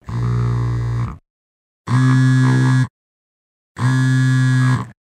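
Mobile phone on vibrate, buzzing for an incoming call: three pulses of low buzz about a second long each, with dead silence of under a second between them.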